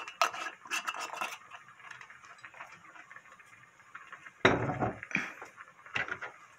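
Earthenware pot of seafood soybean-paste stew bubbling on a gas burner. Several light clinks of kitchenware come in the first second or so, and a heavier knock about two-thirds of the way in.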